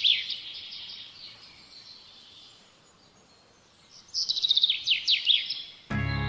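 A songbird singing: a quick burst of high, rapidly falling notes at the start, and another about four seconds in, with a quiet pause between them. Music cuts in suddenly just before the end.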